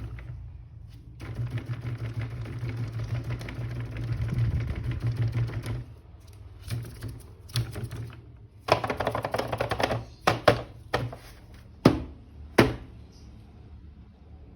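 Hard plastic being handled: a rapid clattering rattle for several seconds, then scattered clicks and knocks, with two sharp knocks loudest near the end.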